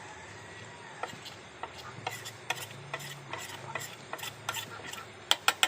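Spoon stirring in a cooking pot, clicking and scraping irregularly against the pot as chili powder is stirred into hot oil, with a quick run of sharper taps near the end.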